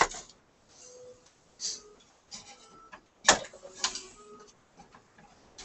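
Handling noises on a workbench: scattered clicks and rustles from hands moving among cords and equipment, with one sharp click a little over three seconds in.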